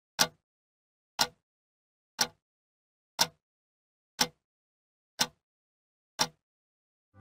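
Clock ticking, seven sharp ticks one a second, with silence between them.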